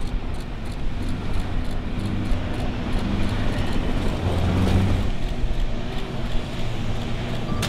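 Ford Bronco Sport SUV under hard throttle on loose dirt: the engine runs steadily with a brief surge about two-thirds through, over the rough hiss of tyres churning dirt and gravel.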